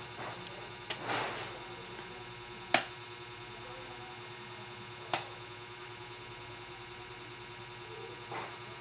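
Clicks and knocks of laptop parts being handled during reassembly: a soft knock with some rustling about a second in, then two loud sharp clicks about two and a half seconds apart, over a faint steady hum.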